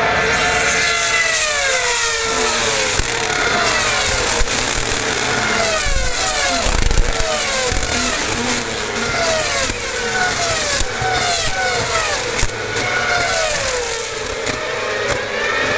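A string of 2011 Formula One cars with 2.4-litre V8 engines going past one after another at high revs. Each car's engine note drops in pitch as it goes by, in overlapping waves.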